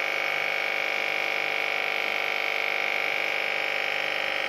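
Steady electric buzzing hum made of many evenly pitched tones at an unchanging level, typical of an aquarium air pump running and feeding an air stone.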